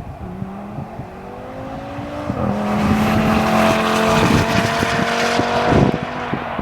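Audi RS3 8V's turbocharged 2.5-litre inline five-cylinder engine under hard acceleration: the engine note climbs in pitch, drops suddenly about two seconds in as it shifts up, climbs again louder, then falls away as the throttle is lifted near the end.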